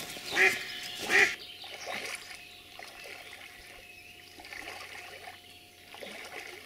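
Pied Semenov decoy hen duck quacking loudly twice, about half a second and a second in.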